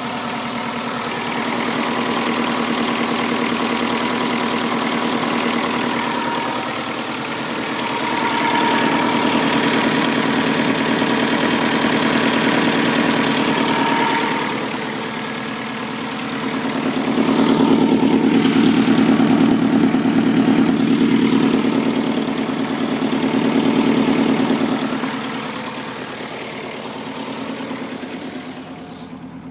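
2006 Subaru WRX's rebuilt turbocharged flat-four engine running at idle, its level swelling and easing several times.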